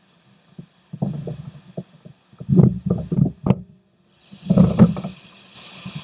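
A paddle knocking and clattering against a plastic fishing kayak in several clusters of thumps as it is laid down across the boat. A steady hiss comes in about four seconds in and grows brighter near the end.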